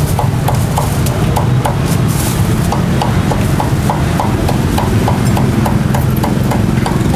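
Meat cleaver chopping crisp-skinned roast pork on a thick wooden chopping block, about four to five quick strokes a second, with a short pause about two seconds in. A steady low rumble runs underneath.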